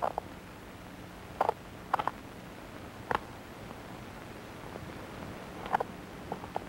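Pressure flaking of a stone point: a pointed flaker pressed against the edge snaps off small flakes, giving short, sharp clicks at irregular intervals, some in quick pairs.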